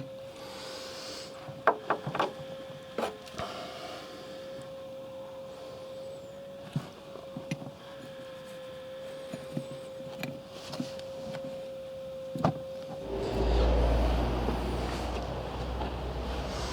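Scattered clinks and taps of hand tools undoing the fittings on a van's rear brake caliper, over a steady faint hum. About three-quarters of the way through, a louder low rumble comes up.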